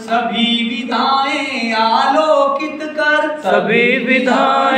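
Hindi verse being chanted in a sung melody, the line drawn out on held, bending notes with a short break about three and a half seconds in.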